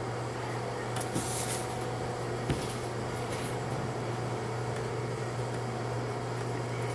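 Steady low machine hum with fan-like rushing, typical of a running commercial smoker, with a couple of light knocks about one and two and a half seconds in.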